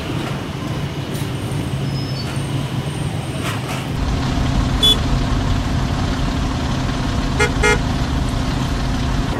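Street traffic: vehicle engines running steadily, with a car horn giving two short toots in quick succession near the end.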